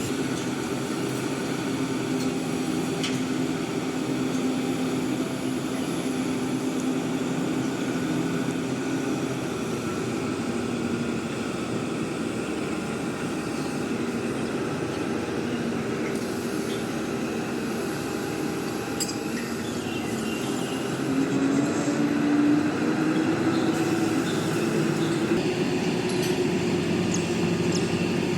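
Mobile crane's diesel engine running steadily under load. About two-thirds of the way through it picks up revs and gets a little louder.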